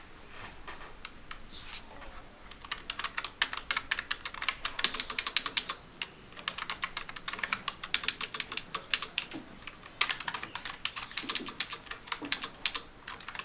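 Fast typing on a computer keyboard, in quick runs of keystrokes that begin a couple of seconds in and pause briefly twice.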